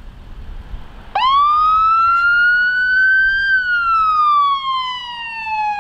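Electronic siren on a brush truck sounding a wail. It starts about a second in with a quick upward sweep and climbs slowly to a high point, then glides down steadily, all over a low rumble.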